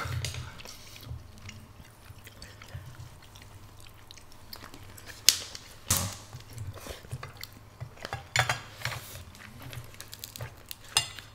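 Close-miked eating of spicy black bean noodles: chewing and mouth sounds, with metal chopsticks clicking against a small metal pot. The loudest is a sharp clink about five seconds in.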